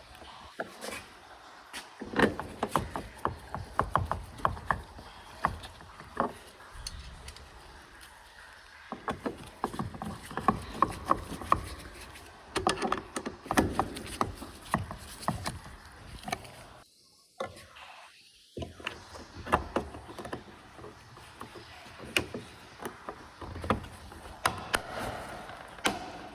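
Irregular clicks and knocks of hands and tools working on a car door's plastic trim panel and seals as the door is reassembled.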